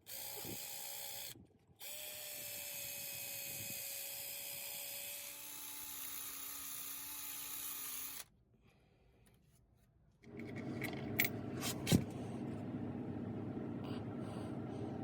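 Power drill running steadily as it drills a pilot hole into a broken exhaust manifold stud in the cylinder head, stopping briefly once. After a two-second pause, a lower, rougher running sound takes over with a few sharp clicks.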